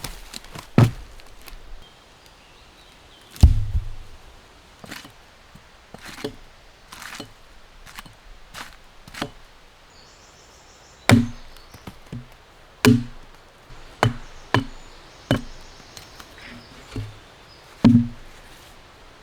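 Wood being chopped: about fifteen sharp strikes at uneven intervals, each with a dull thud.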